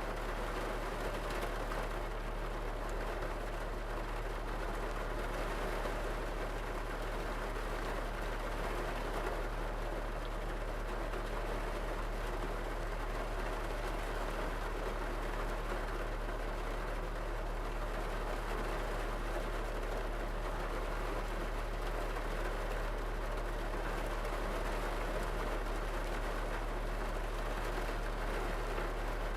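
Steady rain falling on a car's roof and windows, heard from inside the cabin as an even patter, with a steady low hum underneath.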